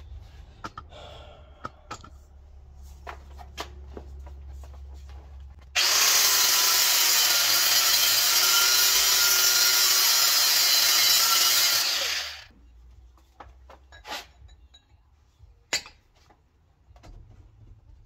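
Angle grinder cutting a groove into the hardened inner race of a worn, pitted differential bearing so that it can be split off with a chisel. It starts abruptly, runs steadily for about six seconds and winds down, with scattered clicks of handling before it and a couple of sharp metal knocks after.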